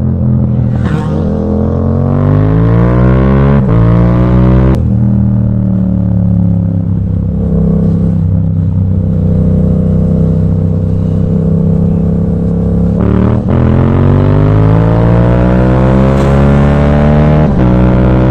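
Yamaha MT motorcycle with an aftermarket Akrapovic exhaust accelerating through the gears. The revs climb and fall sharply at two quick upshifts a few seconds in, the bike runs steadily for a while, then it pulls hard again from about two-thirds of the way through and shifts up once more near the end.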